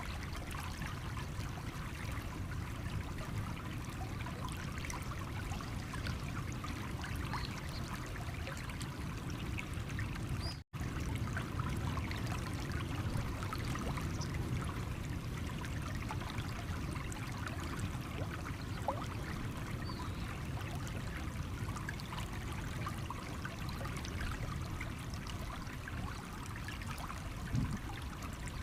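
Stream water running over stones: a steady trickling and gurgling flow with many small splashes. The sound cuts out for an instant about eleven seconds in.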